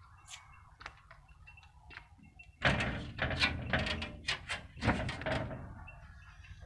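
Blue sheet-metal gate rattling and banging as a dog paws at it and pushes it open: a run of loud clattering knocks starting a little before halfway and lasting about three seconds.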